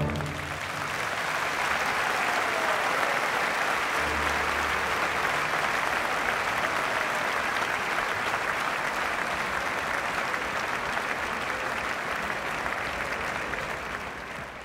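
Opera audience applauding, a dense steady clapping that takes over as the orchestra's final chord stops, then fades out near the end.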